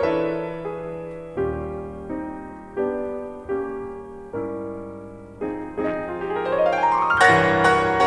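Pianos playing held chords, struck about once a second and ringing away between strikes, then a quick rising run up the keyboard that lands on a loud chord near the end; an early-1960s mono studio recording.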